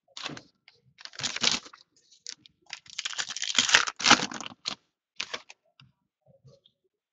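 A foil trading-card pack torn open and crinkled by hand in several short crackly bursts, with the cards slid out and set down on a stack near the end.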